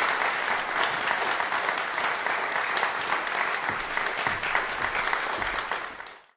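Audience applauding: steady clapping that fades out near the end.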